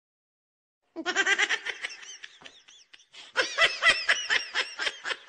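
Laughter in quick, pulsing bursts, starting suddenly about a second in after dead silence, easing off, then breaking out again louder about three seconds in.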